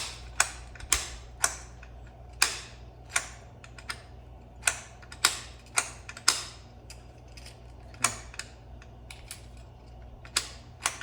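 Sharp clicks and clacks, about a dozen at uneven intervals, from the Torqeedo Travel 1103C outboard's tilt bracket and locking lever being worked by hand and moving a little rough.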